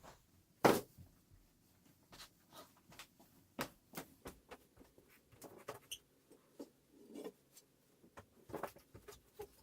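Scattered knocks, taps and light scrapes from a piece of wood being handled, with one sharp knock under a second in.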